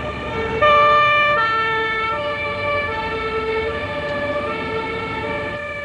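Emergency vehicle's German two-tone siren (Martinshorn) sounding on an emergency run, stepping back and forth between a high and a low tone. It grows louder about half a second in, then slowly fades.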